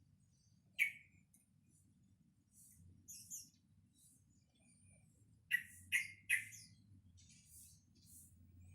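Young yellow-vented bulbul (trucukan) calling while practising its song. It gives a sharp note about a second in, two more around three seconds, then three loud quick notes near the middle, with faint high chirps between.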